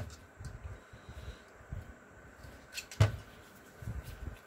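Workshop handling noise: light clicks and small knocks as a hydraulic cylinder part and a steel pick are handled, with one sharper knock about three seconds in.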